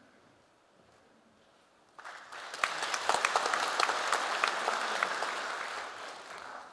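Audience applauding, starting suddenly about two seconds in after a quiet pause and tapering off near the end.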